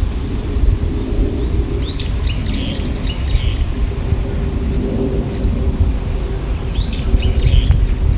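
Strong wind buffeting the microphone in a steady low rumble, while a small bird chirps in two short bouts of quick rising notes, about two seconds in and again near the end.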